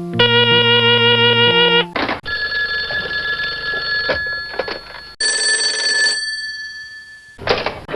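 A run of different telephone rings one after another: first a loud electronic buzzing ring, then a ringing tone lasting about three seconds, then a higher bell-like ring that fades away. A short click-like burst comes near the end.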